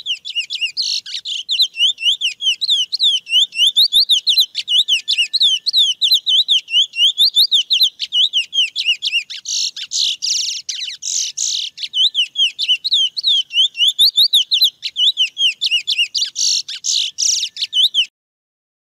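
Male chestnut-bellied seed finch (curió) singing the wild 'mateiro' song: a long, unbroken run of rapid, high whistled and warbled notes. It stops abruptly about eighteen seconds in.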